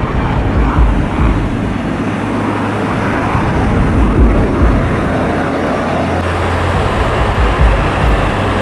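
Jet noise from a HAL Tejas fighter's single turbofan engine as it flies a display: a loud, steady rush with deep, uneven rumbling surges.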